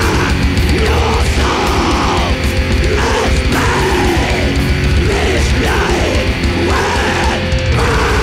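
Blackened death/thrash metal band playing at full tilt: heavily distorted guitars over pounding bass and fast drums, with harsh growled vocals.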